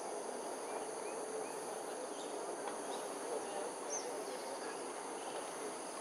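Steady insect chorus of several even, high tones, over a constant background hum, with a few faint, short bird chirps now and then.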